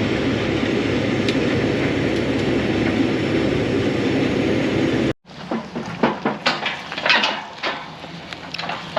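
A combine harvester running steadily under load. About five seconds in the sound cuts off, followed by quieter scattered clicks and knocks over a low engine hum.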